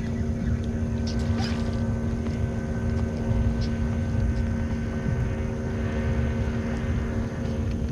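Boat motor running with a steady, even hum over a low rumble, with a few faint ticks on top.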